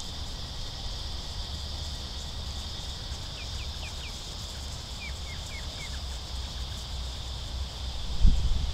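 Outdoor ambience: wind rumbling on the microphone under a steady high hiss. Midway through, a bird gives two quick runs of four short, falling chirps. A low thump comes near the end.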